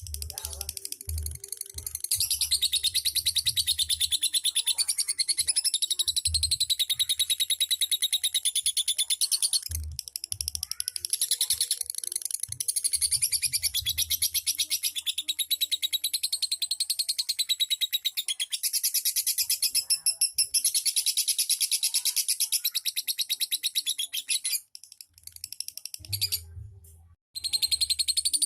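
Lovebird singing a long, rapid chattering trill (ngekek), high-pitched and unbroken for many seconds at a stretch, with short pauses about ten seconds in and near the end.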